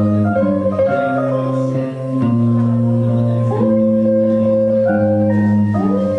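Squier Stratocaster electric guitar and electric keyboard playing an instrumental piece live, with held chords that change every second or two and a sliding chord change near the end.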